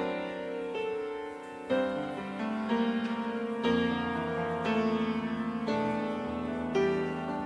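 Piano playing a slow instrumental hymn passage, with a new chord struck about every one to two seconds.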